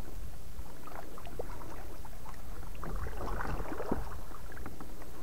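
Double-bladed kayak paddle strokes on alternating sides: water splashing and dripping off the blades in scattered small spatters, over a steady low rumble.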